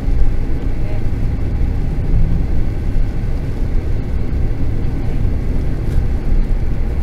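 Steady low rumble of a car driving along a highway, heard from inside the cabin: engine and tyre noise on the road.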